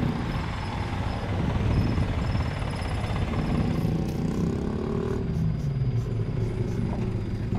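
Road traffic at a level crossing: motor vehicle engines running, a steady low rumble.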